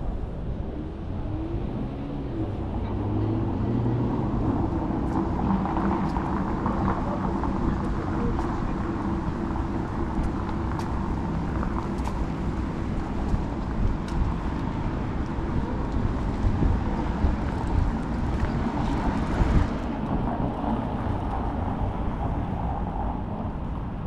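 Busy city street: motor traffic passing with engine hum and tyre noise, one vehicle louder a little before the end, under faint voices of passers-by.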